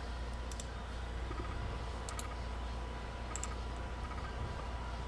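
A few sparse, soft clicks of a computer mouse and keyboard, over a steady low hum.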